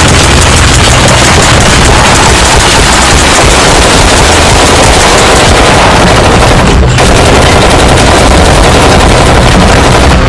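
Loud, continuous rapid gunfire, dense and unbroken like machine-gun fire, with a brief lull about seven seconds in.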